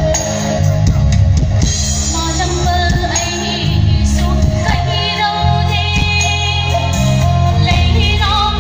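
Live fusion band playing on stage, with guitars, keyboards and percussion, and a woman's singing voice coming in a few seconds in.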